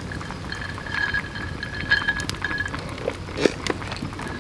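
Soda fizzing over ice in a highball glass, with a few clinks and knocks as a lemon wedge is squeezed over it and dropped in. The loudest knock comes about three and a half seconds in.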